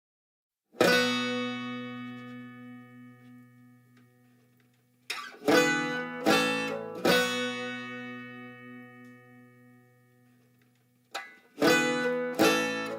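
Music: chords strummed on a plucked string instrument and left to ring out. There is one chord about a second in, a few more around the middle, and a quick run of chords near the end.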